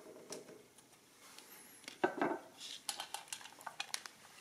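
Handling noise from an antique metal-cased adding machine being moved on a tabletop: a knock with a short rattle about two seconds in, then a quick run of light metallic clicks and clinks.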